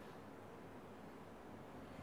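Near silence: faint, steady room tone with a soft hiss.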